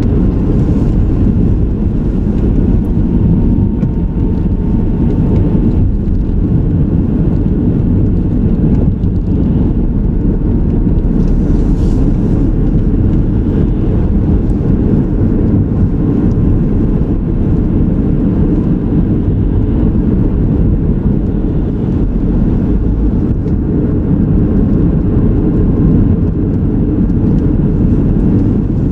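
Car driving on a road: a steady low rumble of engine and tyre noise with no sudden sounds.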